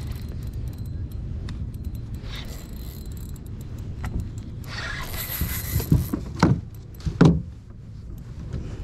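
Handling noise from a kayak angler fighting and landing a fish on a spinning rod: a steady low rumble with light clicking and a stretch of hiss about five seconds in. Then come three loud knocks, about six to seven seconds in, as the landing net and gear bump the plastic kayak.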